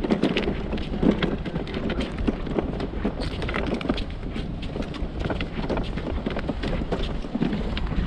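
Footsteps walking over sand and scattered shells, a quick irregular run of crunches and scuffs, over the low rumble of wind on the microphone.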